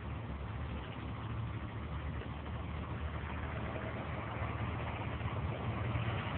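A steady low engine hum, like an idling motor, growing slightly louder toward the end.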